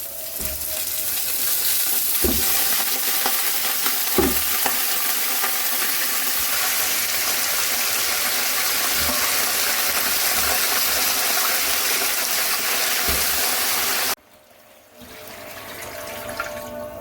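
Food sizzling hard in hot oil in a cooking pot, with a few clinks of a stirring spoon. It cuts off suddenly about fourteen seconds in, and background music starts near the end.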